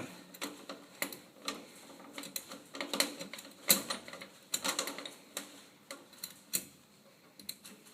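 Irregular light metallic clicks and rattles of a junior drum kit's bass drum pedal clamp being tightened down onto the bass drum hoop, thinning out near the end.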